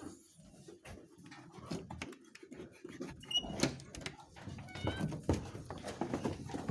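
Sheep bleating briefly a couple of times among scattered knocks and shuffling of the animals in the pen.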